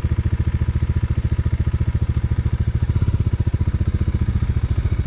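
Motorcycle engine running at low revs, a steady rapid thumping of about a dozen beats a second, as the bike picks its way over a rocky off-road track.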